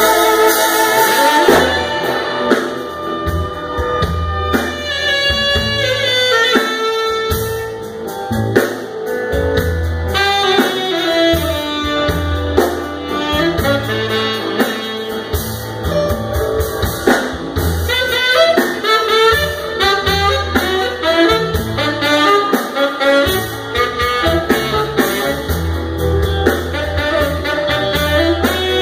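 Live band playing a bluesy jazz number, with a saxophone playing fast runs over drums, keyboard and guitar, and some singing.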